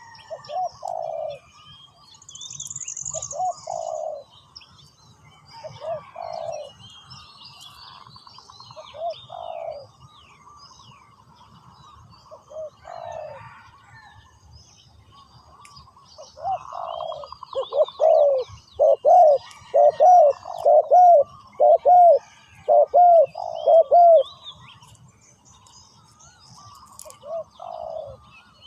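Spotted dove cooing: short coo phrases every couple of seconds, then a louder run of about eight coos in quick succession midway through. Small birds chirp faintly throughout.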